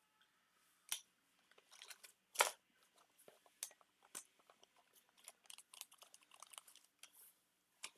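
Hands rummaging through small items and packaging in an opened parcel: scattered light clicks and rustling, with a sharper click about two and a half seconds in.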